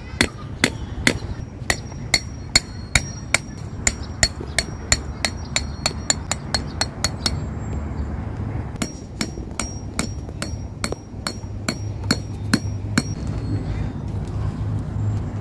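Claw hammer driving metal tent stakes into the ground: quick, even blows about two or three a second, each with a slight metallic ring. The blows pause briefly about halfway, resume for a few seconds, and stop near the end.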